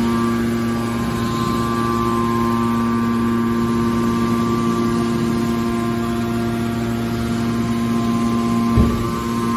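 Car baler's hydraulic power unit running with a steady hum of several fixed tones, and a single knock near the end.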